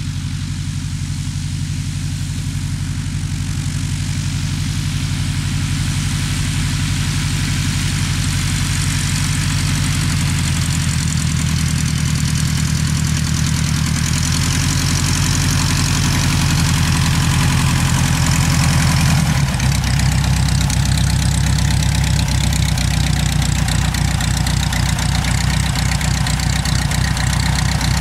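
Aeronca L-3's four-cylinder Continental engine and propeller running at low taxiing power, a steady drone that grows slowly louder as the plane comes closer, changing character about two-thirds of the way through. The idle is set a little too high.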